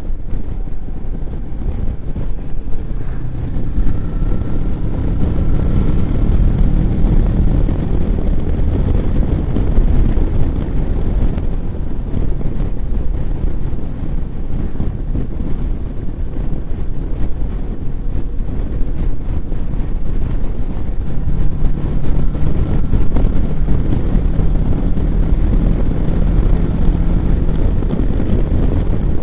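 Wind rushing over the microphone of a Kawasaki motorcycle at road speed, with the engine running steadily underneath. The engine note comes through more clearly twice, a few seconds in and again past the middle.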